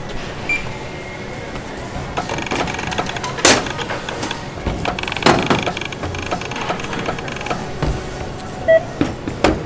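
Handling noise at a store checkout counter: a compound bow and boxed archery gear are picked up and knocked against the counter. There are three sharper knocks, the loudest about three and a half seconds in, and a short beep near the end, over a faint buzz and store background noise.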